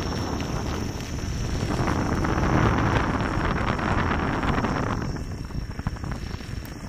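Wind rushing over the microphone mixed with the tyre rolling on an unpaved path, from a Gotway MSuper3 electric unicycle riding along; it grows louder in the middle and eases off near the end. A faint steady high tone runs underneath.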